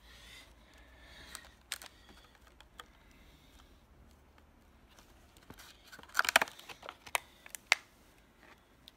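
Clear plastic blister pack crackling and clicking as fingers handle it: a few scattered clicks, a burst of crinkling about six seconds in, then a couple more sharp clicks.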